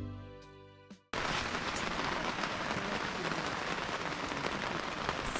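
Background music fading out, then about a second in a sudden cut to steady rain falling, a dense hiss of drops.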